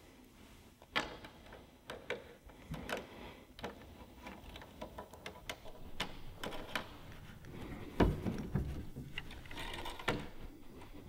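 Scattered small clicks and knocks as a key is worked in the lock of a wooden display case and its glass lid is lifted, with one louder knock about eight seconds in.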